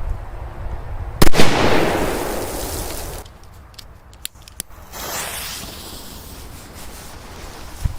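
A big firecracker exploding in a hole in the ground: one sharp, loud bang about a second in, followed by a couple of seconds of noisy rush dying away. A few small pops follow, and another bang comes right at the end.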